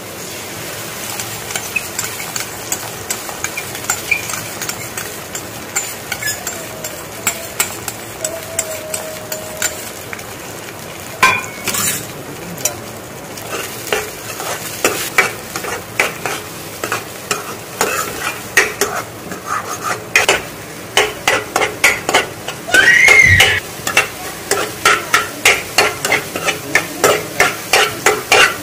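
Beaten eggs sizzling in hot oil in a frying pan with chopped capsicum and tomato, then scrambled with a metal spoon that scrapes and taps the pan. The strokes grow more frequent in the second half, reaching about two a second near the end. There is one brief squeal about four-fifths of the way through.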